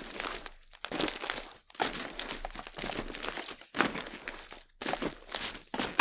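Footsteps crunching on a loose, crunchy surface, one drawn-out crunch roughly every second.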